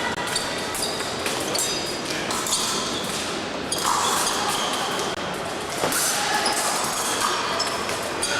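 Épée blades clinking together with short metallic rings, mixed with the thumps of fencers' footwork on the piste.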